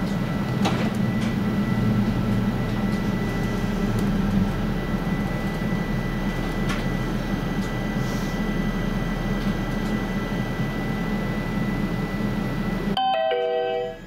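Steady electrical and ventilation hum inside an A35 tram standing at a stop, with a couple of faint steady whine tones and a few light clicks. About a second before the end the hum cuts off sharply and a short series of stepped tones begins.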